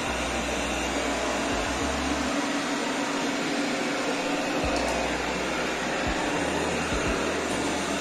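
Eufy RoboVac G10 Hybrid robot vacuum running in mopping mode on tile, its suction fan and motor giving a steady whir with a faint steady hum.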